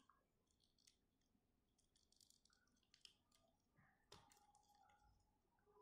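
Near silence, with two faint clicks of small plastic toy parts being handled, about three and four seconds in.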